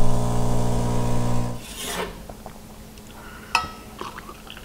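Rancilio Silvia espresso machine's vibratory pump buzzing steadily, cutting off about a second and a half in with a short hiss. A sharp clink of a mug follows, then a few light taps.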